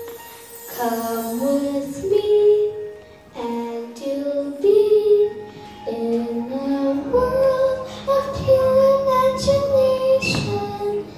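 A nine-year-old boy singing a song into a corded microphone, in phrases of held notes that begin about a second in.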